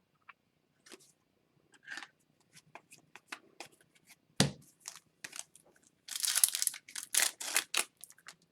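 Trading cards handled with light clicks and one sharper knock, then, from about six seconds in, the foil wrapper of a hockey card pack crinkling and tearing as it is opened.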